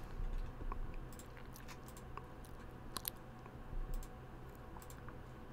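Faint, scattered computer mouse clicks, a few single clicks spread over several seconds, over a low steady room hum.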